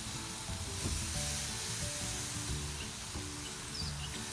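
Marinated chicken sizzling on a grate over hot charcoal, a steady hiss. Soft background music with a simple melody plays over it.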